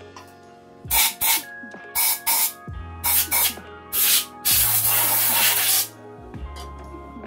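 Compressed-air blow gun blasting into the exhaust ports of a Honda CB750 engine: a run of short hissing bursts, then one longer blast of over a second.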